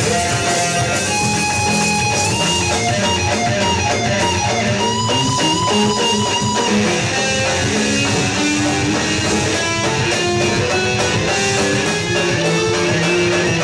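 Live rock-and-roll band playing: electric guitars over drums and bass, with a lead guitar line that repeats one note quickly about midway through.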